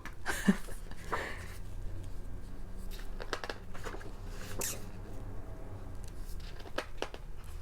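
Pages of a glossy magazine being turned and handled: short paper rustles and soft taps scattered through, over a low steady hum.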